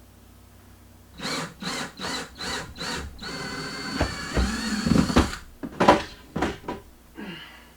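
Power drill run in four or five short bursts, then held for about two seconds, followed by several sharp knocks.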